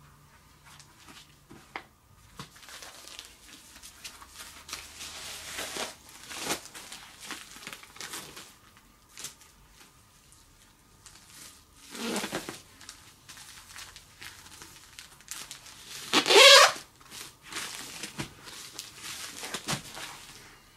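A padded bubble mailer and a stack of paper rustling and crinkling in scattered bursts as the documents are packed into it and the mailer is sealed, with one louder rasping scrape about three-quarters of the way through.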